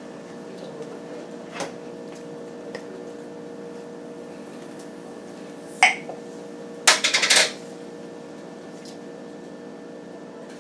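Kitchen handling sounds over a steady hum: a sharp knock about six seconds in, then a quick rattle of clicks as the lid of a jar of Ragu Alfredo sauce is twisted open.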